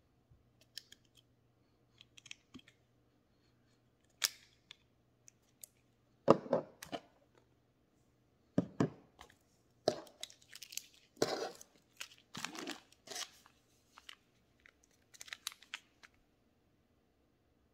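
Small plastic toiletry items handled and set down on a table: bottles and tubes clicking and knocking, with rustling of packets, in irregular bursts that are busiest in the middle.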